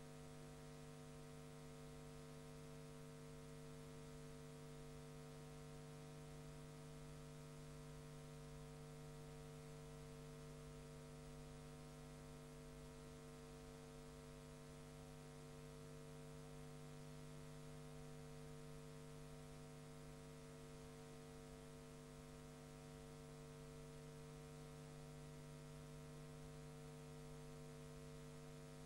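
Near silence, filled by a steady low electrical mains hum with a faint hiss, unchanging throughout.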